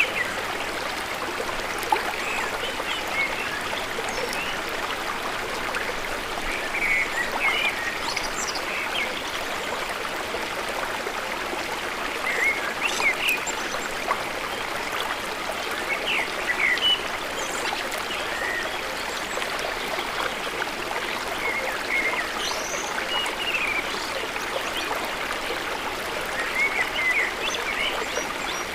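Steady rushing water at an even level, without distinct swells, with small birds chirping now and then over it.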